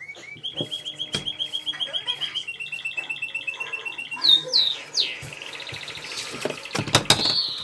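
A small bird singing: a fast trill of about ten chirps a second, then a few downward-sweeping calls. Near the end, a short burst of knocks and rustling.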